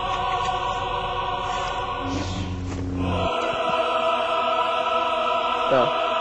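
Background music of a choir singing long, held chords.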